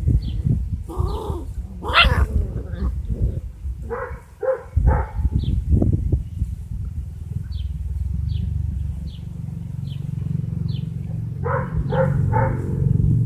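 Great Dane puppies yelping and whining while suckling from their mother: short high calls, twice in quick runs of three, over a steady low rumble.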